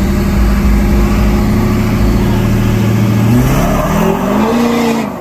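Lifted pickup truck's engine running steadily, then revving up as the truck pulls away, its pitch rising over the last two seconds.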